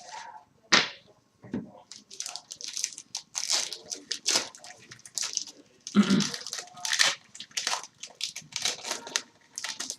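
A hockey card pack's wrapper being torn open and crinkled, a run of irregular crackling and tearing noises.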